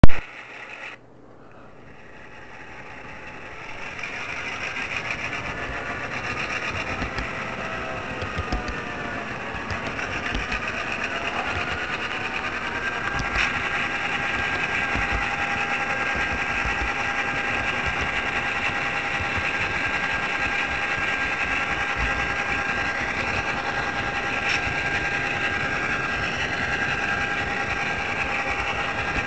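HO scale model train running with the microphone riding on board: the small electric motor whines steadily over a rapid clicking of wheels on the rails. The sound builds up over the first few seconds after a sharp click at the very start.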